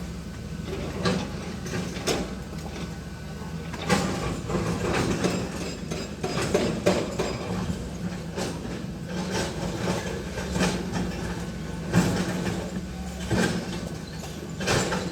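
Heavy machinery at work: an engine running steadily with irregular clanks and knocks over it, the loudest about four seconds in and again about twelve seconds in.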